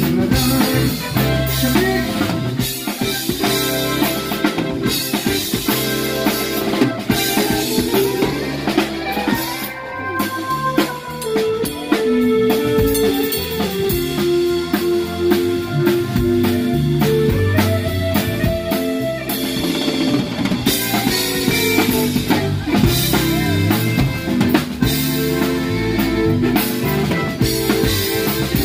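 Live band playing: a drum kit keeps a steady beat with snare, bass drum and cymbals under electric guitar.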